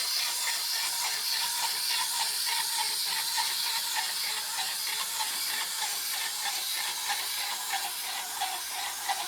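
Steady airy hiss of breathing inside an electronic costume mask.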